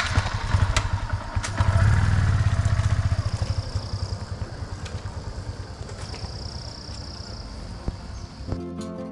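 Motorcycle engine running, revving up about two seconds in as the bike pulls away, then fading steadily as it rides off.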